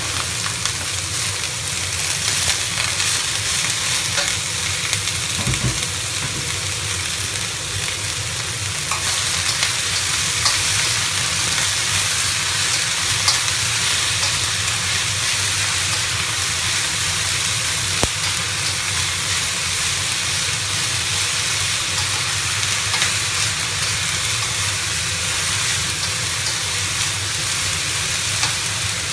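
Shredded potatoes stir-frying in a hot, oiled wok: a steady sizzle, with occasional scrapes and clicks of a metal spatula against the wok as they are tossed.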